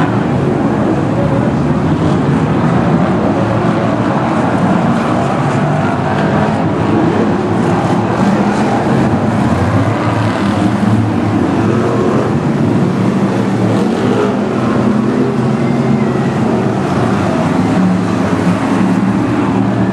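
A pack of BriSCA F1 stock cars racing round the oval, their V8 engines running loud and unbroken as several cars pass together.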